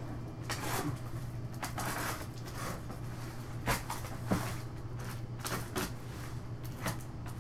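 A cardboard shipping box being opened by hand: tape pulling off and cardboard flaps tearing and scraping in a string of short rips and rustles, over a steady low hum.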